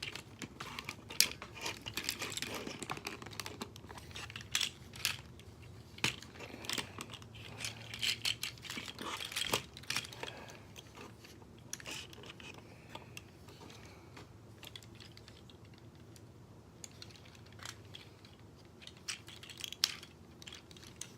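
Plastic toy parts clicking and knocking as a Transformers Combiner Wars combiner figure is handled and adjusted. The clicks come thick and fast for the first half, then thin out to a few scattered ones.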